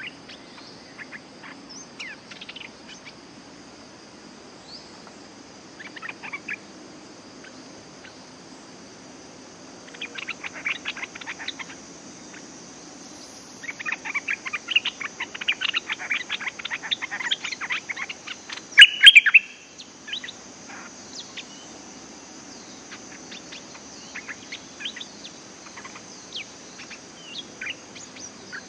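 Bulbuls calling: scattered short notes, then two runs of rapid chattering notes in the middle, the second longer and ending in the loudest burst. A steady high insect drone runs underneath.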